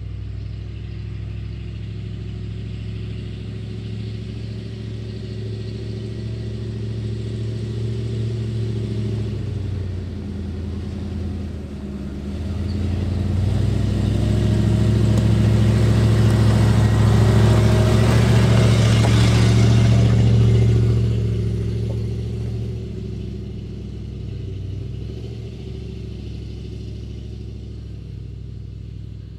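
Ford E350 4x4 van driving along a dirt road and passing close by: its engine runs steadily, and the engine and tyre noise grow louder toward the middle, then fade as the van moves away.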